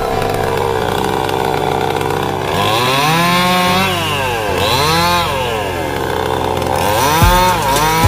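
Two-stroke chainsaw running steadily, then revved up and let back down three times.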